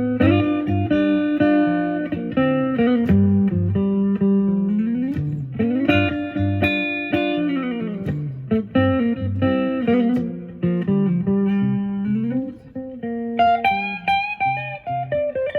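Epiphone Sheraton semi-hollow electric guitar playing a slow blues in G, single notes and double stops with several string bends that push notes up and let them back down.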